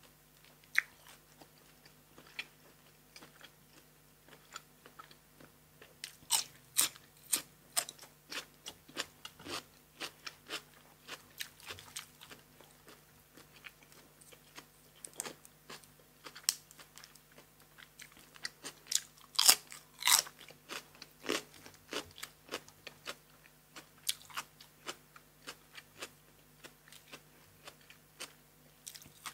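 Close-miked chewing and crunchy bites of blanched cuttlefish and crisp raw vegetables: wet mouth sounds with irregular crunches. Louder runs of crunching come about six seconds in and again around twenty seconds.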